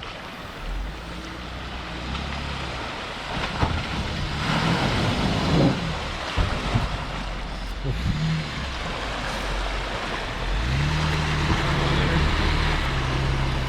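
A vehicle's engine pulls under load through a creek crossing, with water hissing and splashing around it and a few sharp knocks in the middle. The engine note rises and then holds steady near the end.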